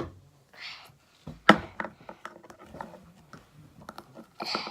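Play-Doh being scraped out of plastic tubs: short scraping sounds and small clicks, with a sharp knock about one and a half seconds in.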